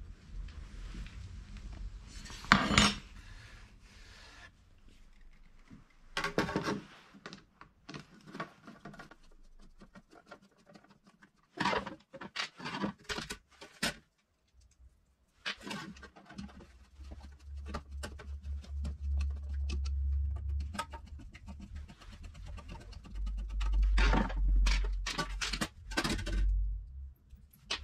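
Tools and small parts being handled on a workbench: scattered clinks, knocks and scrapes, with two spells of low rumble in the second half.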